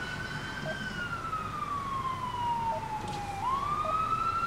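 Emergency vehicle siren on a wail cycle, a slow fall in pitch followed by a rise again near the end, growing louder.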